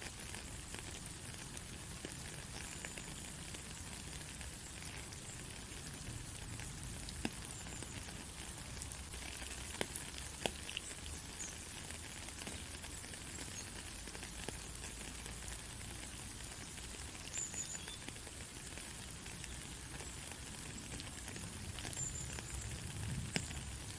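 Steady rain falling on a country road: an even, high hiss with scattered sharp drop taps.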